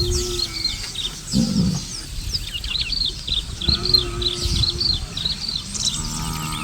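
Bush birds chirping busily, a rapid run of short, high, falling notes. A short low call sounds at the start and again about four seconds in, over a low rumble.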